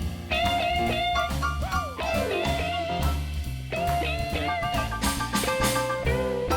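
Live blues band playing an instrumental break: an electric guitar lead with held and bent notes over bass guitar and drum kit.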